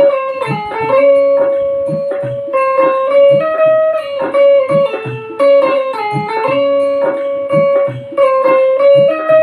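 Indian banjo (bulbul tarang) playing a melody, its keys stopping plucked metal strings so the notes step and slide in pitch. A regular low pulse runs underneath, about twice a second.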